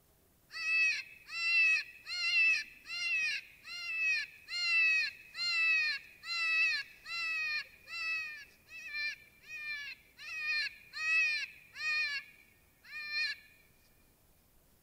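A predator call sounding a prey distress cry to call in coyotes: a run of about twenty short, high, wavering cries, each rising then falling in pitch, about one and a half a second. It breaks off, then gives one last cry.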